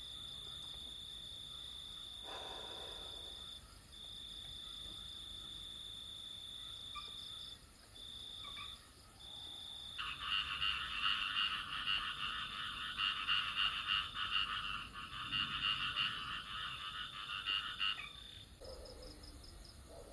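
Night chorus: an insect trills on one steady high note with short breaks. About halfway through, a dense chorus of frogs calling in rapid pulses comes in and stops shortly before the end.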